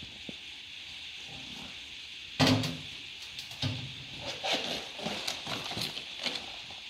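A steel tap holder with its tap knocks down once onto a steel tool cabinet about two and a half seconds in. A run of lighter metal clicks and clatters follows as it is handled, over a steady background hiss.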